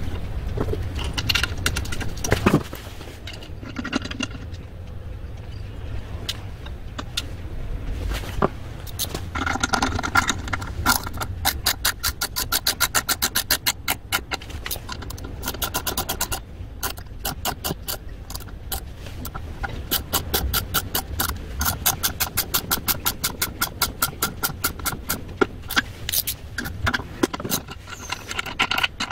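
Metal hand tools working on a four-stroke brush cutter's cylinder head during a rocker arm replacement: scraping and knocks, with two long runs of fast, even clicking.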